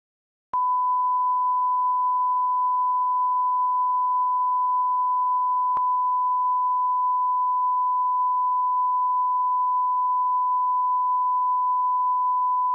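Steady 1 kHz sine-wave line-up tone, the reference tone that goes with SMPTE colour bars for setting audio levels. It starts about half a second in and holds one unchanging pitch, with a faint click near the middle.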